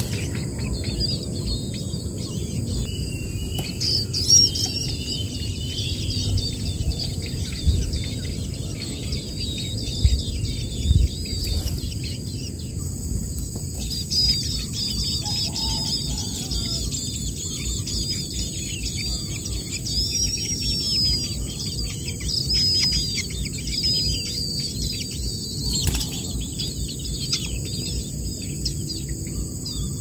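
Nestling birds begging with thin, high chirps and squeaky calls that come and go, over a steady high insect drone and a low rumble.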